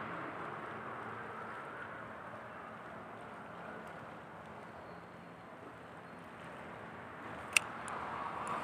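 Steady outdoor background hiss with no clear source, and one sharp click near the end.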